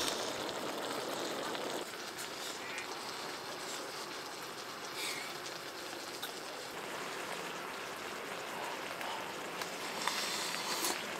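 Pork, kimchi and tofu sizzling and simmering on a hot grill pan: a steady hiss, a little louder in the first two seconds, with a few light clicks.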